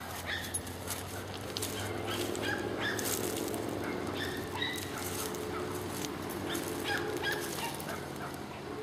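Union Pacific 4-8-4 steam locomotive No. 844's whistle blowing a long, sustained chord in the distance as the train approaches a grade crossing, with short high chirps over it.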